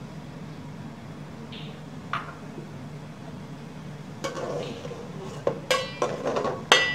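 Perforated metal skimmer spoon stirring jaggery into hot water in a metal pot, knocking and clinking against the pot's sides. There is a single clink about two seconds in, then a run of clinks from about four seconds in, the last ones ringing.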